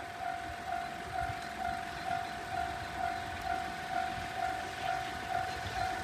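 Japanese railway level-crossing warning bell ringing: an electronic mid-pitched ding repeating evenly a little over twice a second, the signal that a train is approaching. The uploader identifies the tone as the Tohoku or Tokai type of crossing sound.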